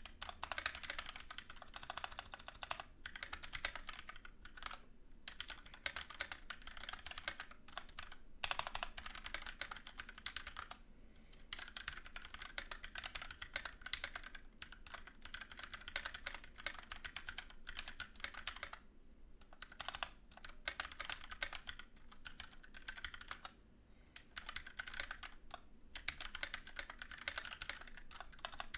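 Continuous fast typing on a Keychron K6 mechanical keyboard with Gateron brown switches, in rapid runs of key clicks broken by brief pauses.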